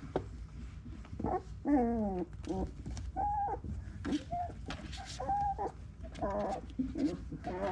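Llewellin setter puppies whining and squeaking: a string of short high whines, with one longer falling whine about two seconds in.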